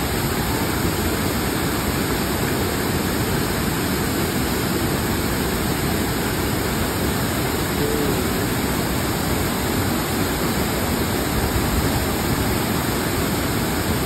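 Steady rushing of water pouring down a wide, stepped rock waterfall and splashing into the shallow pool below.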